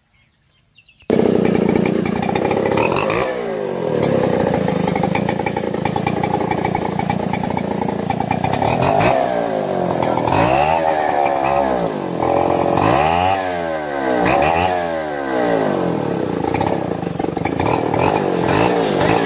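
Two-stroke chainsaw engine cutting in abruptly about a second in and running loud at high speed, its pitch repeatedly dropping and climbing back up.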